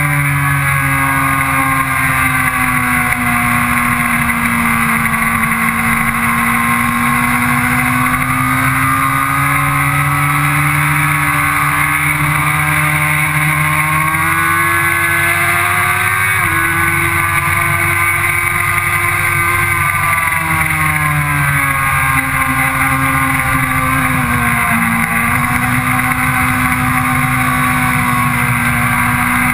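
Sport motorcycle engine running hard on a racetrack lap, its pitch slowly rising and falling through the corners, with a sudden step up in pitch about halfway through.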